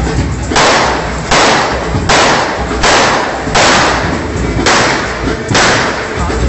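Pump-action "repeater" shotgun fired seven times in quick succession, roughly one shot every three-quarters of a second to a second, each report ringing out briefly.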